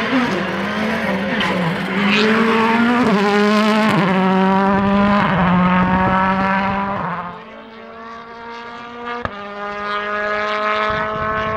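World Rally Car engine at full throttle: the Volkswagen Polo R WRC's 1.6-litre turbocharged four-cylinder passes close by, its note stepping up through the gears. About seven seconds in, the sound gives way to the quieter, steadier engine note of the more distant Hyundai i20 WRC, with a single sharp crack about nine seconds in.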